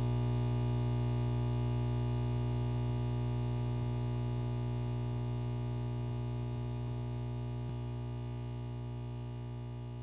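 A sustained low musical drone made of a stack of steady, unchanging tones, slowly fading.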